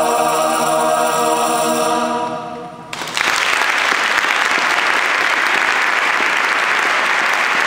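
Mixed church choir holding its final chord, which fades away about two seconds in. About three seconds in, the audience breaks into applause that carries on steadily.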